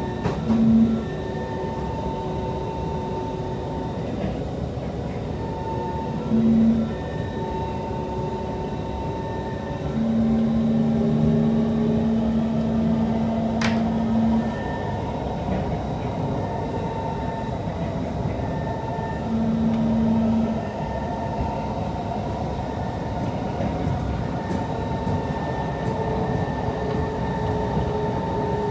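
Interior of a Kawasaki/Nippon Sharyo C151 metro train running along the line: a steady rumble from the wheels and running gear, with a few high steady tones. A low hum swells and fades four times, the longest lasting about four seconds in the middle. A single sharp click comes about halfway through.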